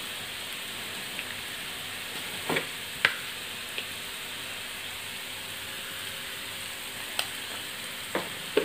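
Sliced onions sizzling steadily in coconut oil in a frying pan, freshly salted, with a few sharp clicks scattered through.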